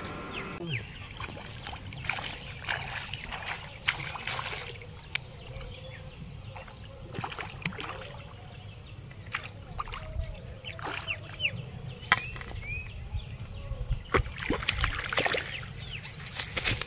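A hooked fish splashing and thrashing at the water's surface as it is played on a rod and line, in short irregular splashes.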